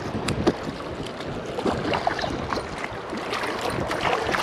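Water splashing and sloshing in irregular bursts at the creek's edge, as a freshly caught white bass thrashes while being landed.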